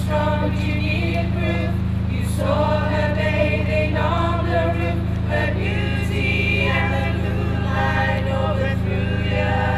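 Mixed choir of men's and women's voices singing, unaccompanied, with a steady low hum beneath.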